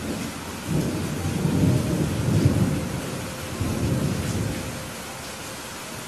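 Steady rain with a rolling rumble of thunder that builds about a second in, swells twice, and dies away near the end.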